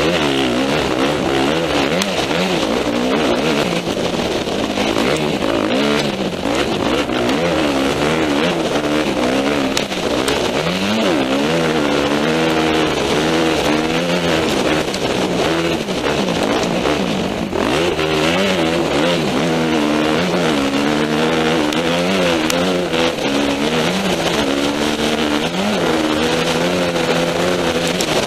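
Yamaha 250F dirt bike's four-stroke single-cylinder engine under way on a dirt trail, revving up and down again and again as the throttle is worked, over a steady rush of wind and riding noise.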